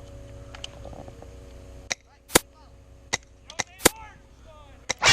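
Airsoft guns firing single shots: about six sharp, separate cracks spread over the last three seconds, the first one about two seconds in, ending in a louder burst of shots.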